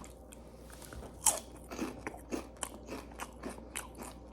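A person biting into a potato chip with one crisp snap about a second in, then chewing it with a steady run of crunches, about three a second.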